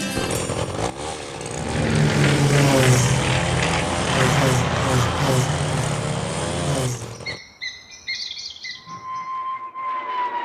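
Cartoon sound effects: a loud, steady machine-like noise with a low hum for about seven seconds, then stops. Brief high bird-like chirps follow, then a long falling whistle near the end.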